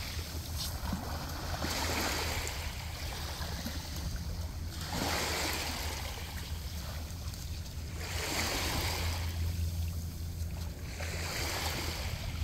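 Small seawater waves washing up and draining back over a sandy, pebbly shore, rising and falling every three seconds or so, over a steady low rumble.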